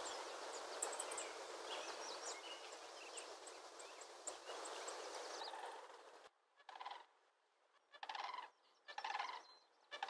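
Sandhill cranes calling: four short, rattling calls about a second apart in the second half. Before them there is faint outdoor hiss with small bird chirps.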